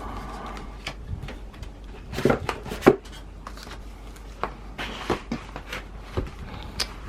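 Photobook boxes and their contents being handled and opened by hand: scattered taps, knocks and rustling of packaging, with a sharper knock about three seconds in.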